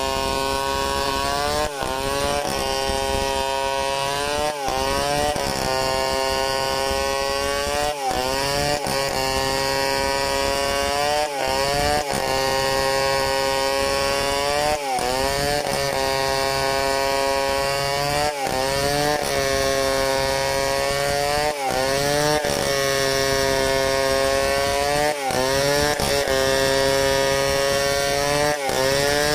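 Two-stroke chainsaw running at full throttle as it rips lengthwise down a log in a freehand cut. About every three seconds its engine note briefly dips and climbs back.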